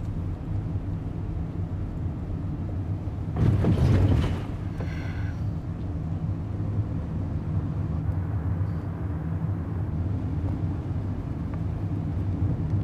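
Steady low drone of a car's engine and road noise heard from inside the cabin. About three and a half seconds in, a louder rushing swell lasts about a second, followed by a brief high-pitched tone.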